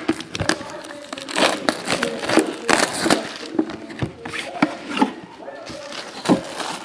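Plastic shrink wrap being torn and stripped off a sealed trading-card box: a series of irregular crinkling, crackling rustles.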